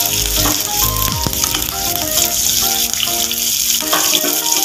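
Hot oil sizzling steadily as mustard seeds, cumin, dried red chillies, green chilli and curry leaves fry in a pan for a tempering (tadka), with background music playing a simple melody.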